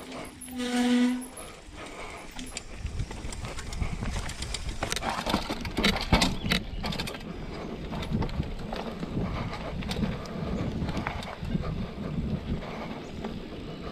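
Mountain bike riding over a dirt trail: a continuous rumbling, rattling noise of tyres on dirt and stones with many small clicks and knocks, growing louder from about two seconds in. About a second in, a brief steady pitched tone stands out.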